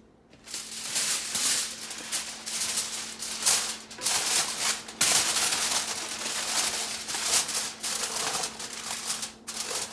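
Aluminium foil crinkling and rustling as it is handled and spread over the chicken in its pan, starting about half a second in and going on in loud, uneven crackles.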